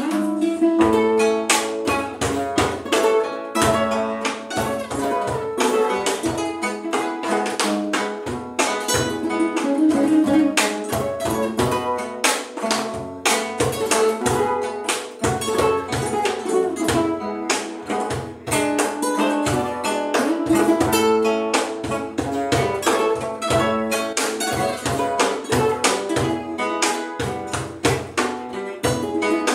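A bolero played on two classical guitars, plucked and strummed, with a cajón tapping out the rhythm.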